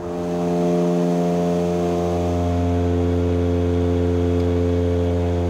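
Antonov An-26 turboprop engines and propellers droning, heard inside the cockpit: a loud, steady hum made of several even tones over a hiss. The deepest tone grows stronger about two seconds in.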